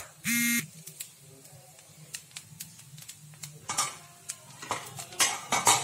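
A short flat buzzing beep near the start, then a steel pan lid coming off and a utensil scraping and turning rice in the pan, with light clicks and louder scrapes about four seconds in and near the end.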